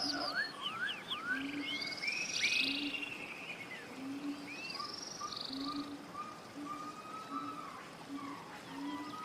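Forest ambience of several birds singing, with quick rising and falling chirps and buzzy trills, over a low short call repeated steadily about once a second.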